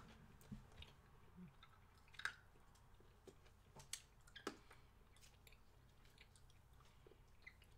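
Faint chewing of sticky bubblegum toffee, with a few short sharp clicks scattered through it.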